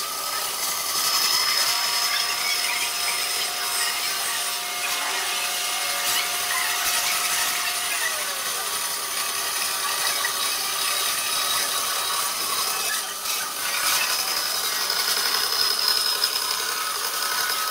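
Bandsaw running and cutting a curve through a pine tabletop panel: a steady whir of the machine and blade in the wood, with thin ringing tones, one of which drops in pitch about halfway through.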